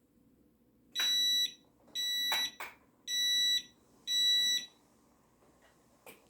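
Four high-pitched electronic beeps, each about half a second long and spaced about a second apart, with a couple of faint clicks after them.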